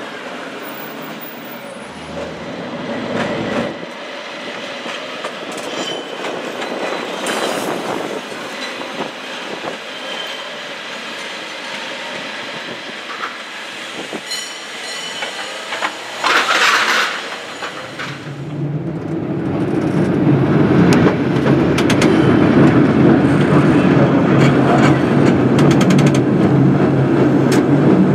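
San Francisco cable car on the California Street line running on its track, with rattling and clatter from the rails and cable slot. About 16 seconds in there is a brief loud high-pitched sound, and from about 18 seconds a loud steady rumble sets in, as heard riding aboard the moving car.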